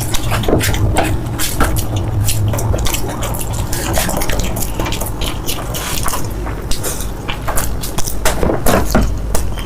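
Close-miked wet eating sounds: slurping and chewing noodles, a quick, continuous run of small wet clicks and smacks.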